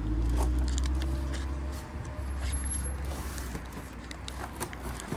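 A motor vehicle engine running with a low steady hum that fades near the end, with scattered light clicks and rattles.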